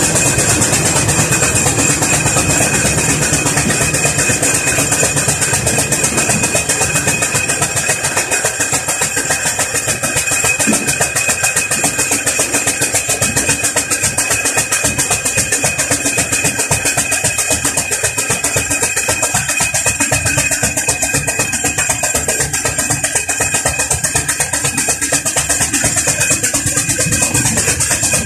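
Burrell Gold Medal steam tractor running along the road under way, with a fast, even beat and mechanical clatter that holds steady throughout.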